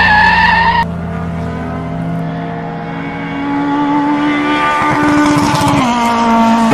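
Race-car tyres squealing in a hard skid that cuts off abruptly about a second in. Then a race car's engine rises steadily in pitch and drops sharply near the end as it goes past.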